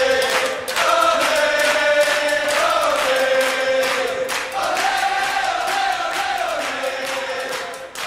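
Hockey goal song playing: music with a group of voices chanting and singing a melody of held, gliding notes, dipping briefly just after the start and again near the end.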